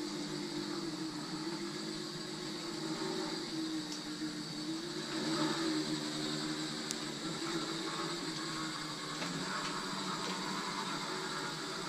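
Homemade RC lawn mower's 24-volt DC electric motor running with a steady whine, its pitch wavering a little, with a couple of faint ticks.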